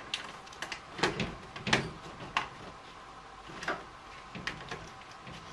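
Scattered clicks and knocks of hands working parts in a car's engine bay: about eight short, sharp knocks, the loudest about a second and nearly two seconds in.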